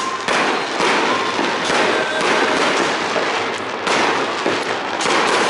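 Aerial fireworks shells bursting: several loud bangs spread over a few seconds, with continuous crackling between them.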